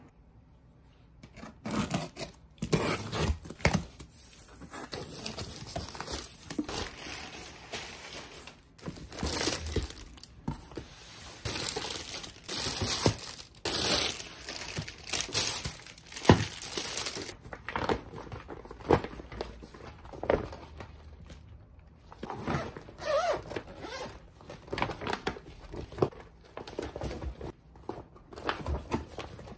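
Plastic packaging and bubble wrap crinkling and rustling in irregular bursts as items are handled and pulled out of a cardboard box, starting about a second and a half in.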